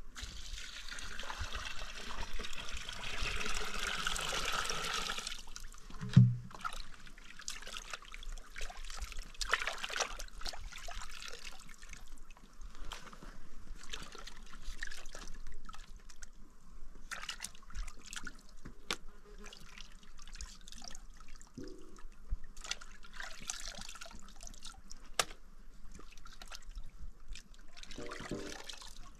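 Water pouring for about five seconds, then a single thump, and scattered clicks, clinks and drips.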